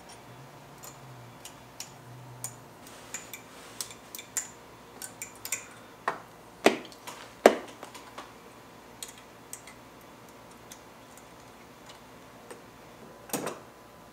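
Scattered metallic clicks and clinks of a hand tool and metal parts being worked around a car's throttle bodies and throttle cable, with a few louder knocks about six and a half and seven and a half seconds in and again near the end.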